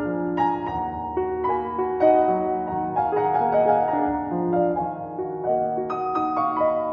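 Background piano music: a slow, gentle melody over soft held chords.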